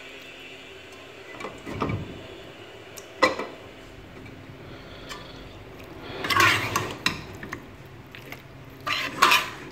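Metal spatula clinking and scraping against a stainless steel cooking pot as meat is turned in the masala. There are single knocks about two and three seconds in, a longer scrape around six seconds, and more clinks near the end.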